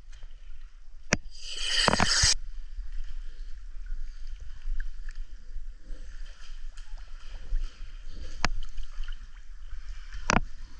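Water sloshing and lapping around a handheld underwater camera at the surface of a spring, with a louder rush of splashing about two seconds in. Three sharp knocks of handling on the camera are spread through the sound.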